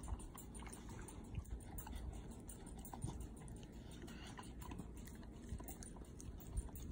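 Bulldog licking and smacking peanut butter off a fingertip: quiet, irregular lip-smacking clicks.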